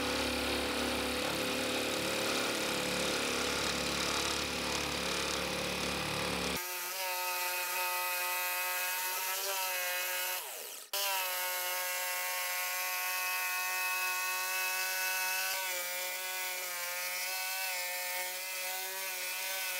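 Black & Decker jigsaw with a carbide-tipped blade cutting fiber-cement (Hardie board) siding: the motor's steady whine and the rasp of the blade through the cement board. The sound changes abruptly about six and a half seconds in and drops out for a moment near eleven seconds.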